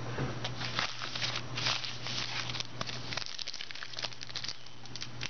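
Packaging rustling and crinkling in irregular bursts as trading-card packs are handled and opened, over a low steady hum that stops about three seconds in.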